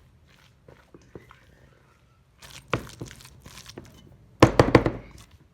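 A spoon mixing chicken salad in a bowl: soft scrapes and clicks, a burst of clattering about two and a half seconds in, and a louder run of quick knocks near the end.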